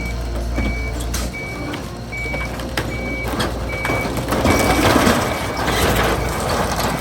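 Heavy truck's reversing alarm beeping at one steady pitch, about one beep every three-quarters of a second, over the noise of the running vehicle.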